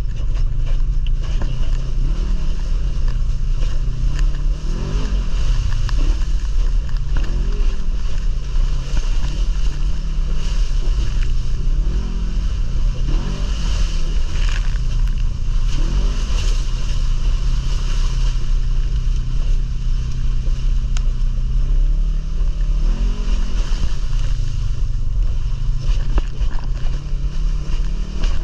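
ATV engine running steadily under way, its pitch rising and falling several times as the throttle is opened and eased off.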